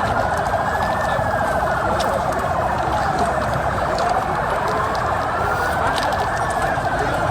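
Emergency vehicle siren in a slow wail, its pitch rising and falling about every five seconds, twice over, above a dense steady layer of siren noise.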